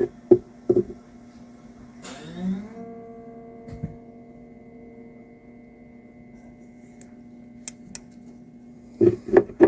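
Koa mountain dulcimer's strings strummed once about two seconds in, ringing for a few seconds and fading. A few light clicks and short knocks follow near the end as the instrument is handled.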